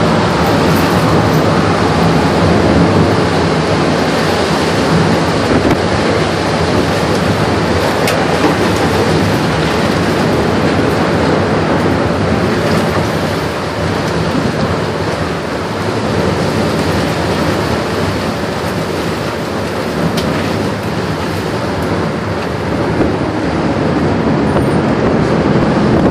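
Loud, steady rush of wind and rain from a violent tornado passing close by. It eases a little partway through and builds again near the end.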